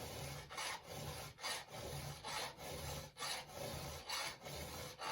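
Hand file rasping across a square-ground chainsaw chain's cutter tooth in steady strokes, about one a second, sharpening the chain.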